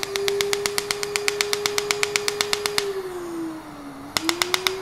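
Asclepion MCL31 Dermablate Er:YAG laser firing fractional pulses into facial skin: a rapid, even train of sharp pops, about eight a second, each the pang of tissue water evaporating under the pulse. The pulses stop about three seconds in, then a short burst of a few more comes near the end. A steady whine runs underneath and dips in pitch during the pause.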